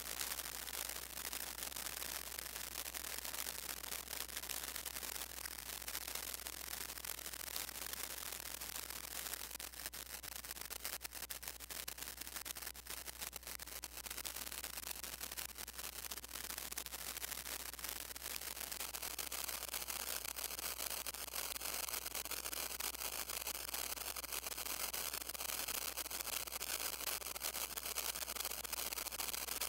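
Modular synthesizer putting out a noisy, crackling texture of hiss and rapid clicks over a steady low hum. About twenty seconds in, faint wavering high tones join it.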